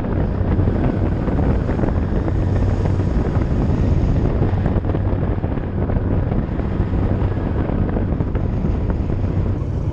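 Lifeboat engine running with a steady low hum, under loud wind rushing over the microphone.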